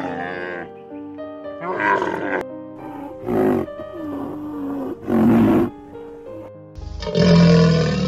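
Background music with a series of animal calls over it: a pitched call, then two short noisy blasts, then a loud, long low call starting about seven seconds in.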